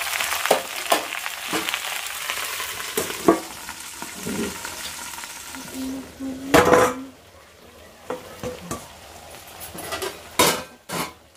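Okra and green chillies sizzling in a frying kadai while a spatula stirs and scrapes the pan. About six and a half seconds in, a steel bowl is clanked down over the pan as a lid and the sizzling drops away; near the end the lid clanks as it is lifted off.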